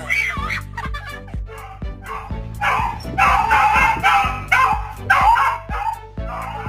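Dog barking and yipping in a run of about six short calls, roughly two a second, starting a little over two seconds in, over background music.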